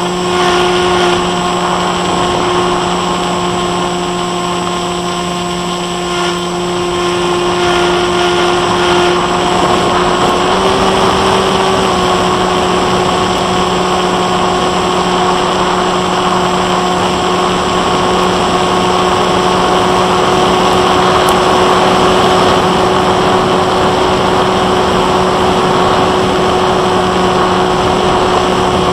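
Bixler 1.1 FPV plane's Turnigy 2826-6 brushless electric motor and 8x3.4 propeller running in flight: a steady buzzing drone with a rush of air noise. The pitch rises slightly about ten seconds in, then settles back a second or so later.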